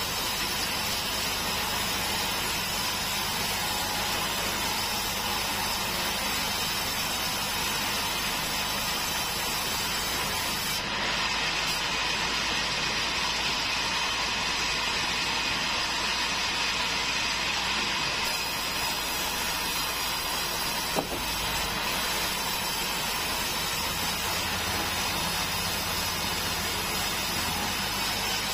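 Large sawmill bandsaw running steadily as its blade rips lengthwise through a five-metre keruing log, with one short sharp knock about three-quarters of the way through.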